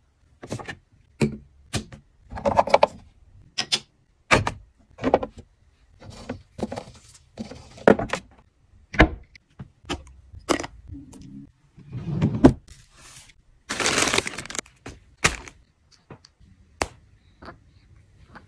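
Plastic bottles and a squeeze tube being handled and set down in a clear plastic organizer bin: a run of sharp taps, clicks and knocks with short scrapes, and a noisy rustle lasting about a second two-thirds of the way through.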